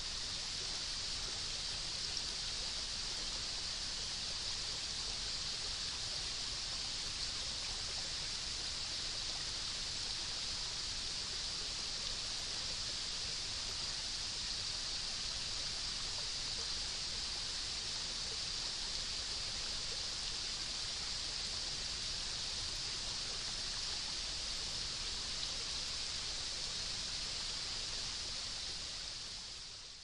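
Steady, even hiss of a shallow rainforest stream and forest ambience, unchanging throughout, with no distinct calls or footsteps standing out.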